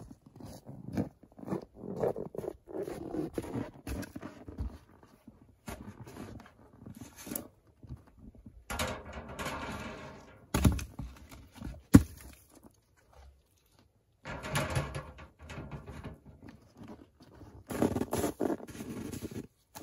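Footsteps crunching on packed snow and firewood logs knocking as they are moved and set down, in irregular bursts. One sharp knock about twelve seconds in is the loudest sound.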